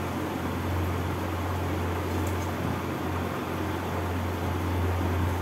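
Steady low hum with an even hiss over it, like a running fan or appliance, and a couple of faint light ticks about two seconds in.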